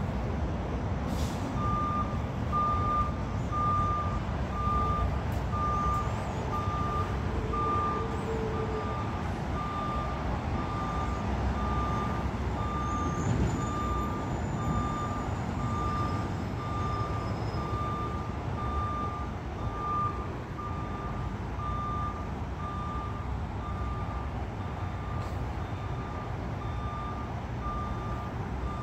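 Peterbilt 520 front-loader garbage truck backing up: its reverse alarm beeps steadily at one pitch, a little over once a second, over the low rumble of its running engine.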